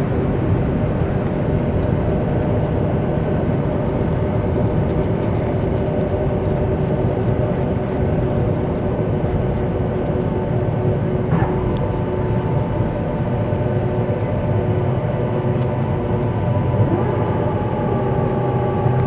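Cabin noise of a Boeing 757-200 rolling on the ground after landing: a steady rush of engine and air noise with a low hum and several steady whining tones. A higher whine comes in about halfway through, and another tone rises near the end.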